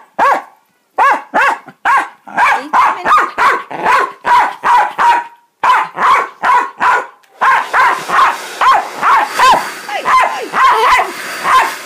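West Highland White Terrier barking over and over in quick, demanding barks, read by his owner as telling her to put the hair dryer on. About seven and a half seconds in, a steady hiss of a hair dryer comes on under the barking.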